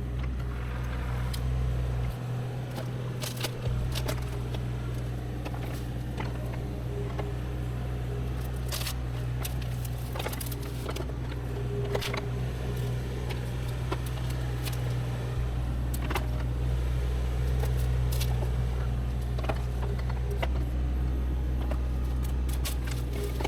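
Diesel engine of heavy land-clearing machinery running steadily, with its pitch dropping briefly a few seconds in. Scattered sharp cracks and snaps sound over it.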